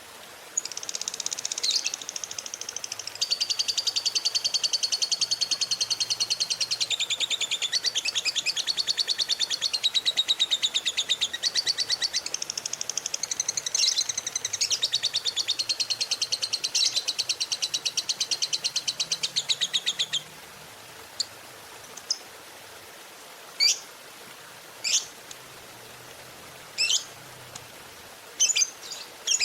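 Lovebird 'ngekek': one long rapid, high chattering trill lasting about twenty seconds, then a few single sharp chirps spaced a second or two apart and a quick run of chirps near the end.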